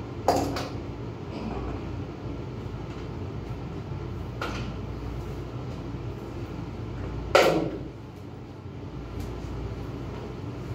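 Clunks and knocks from battery handling at a steel battery rack: a sharp clank about a second in, a fainter knock midway, and the loudest clank with a short ringing tail a few seconds before the end, over a steady low hum.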